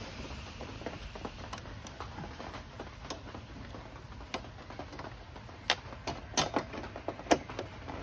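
Scattered light clicks and taps of small parts being handled and fitted by hand, with a few sharper clicks in the second half, over a low steady hum.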